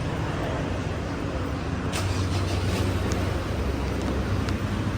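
Steady road-vehicle noise, a low engine or traffic rumble, with a sharp click about two seconds in.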